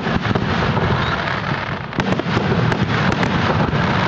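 Aerial fireworks display: many sharp bangs and crackles from bursting shells, one after another over a constant din.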